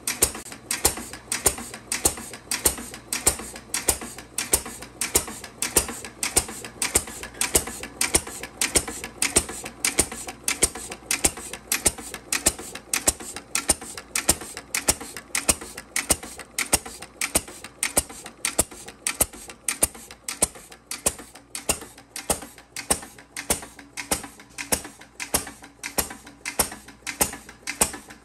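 2 1/2 HP Worthington throttle-governed flywheel engine running steadily under its own power. It fires every cycle in an even rhythm of sharp reports, about two a second, with the clatter of its valve gear: an engine running as it should.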